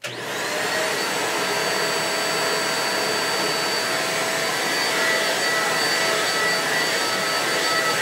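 Deerma DX700 600 W corded stick vacuum cleaner switched on, its motor spinning up within a moment to a steady run: a rushing-air hiss with a thin, high motor whine. It measures about 60 to 70 dB a little more than a hand-span away.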